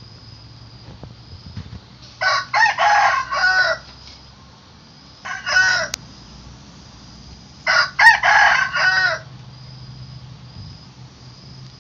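Rooster crowing three times: two long crows of several notes each, with a short one between them.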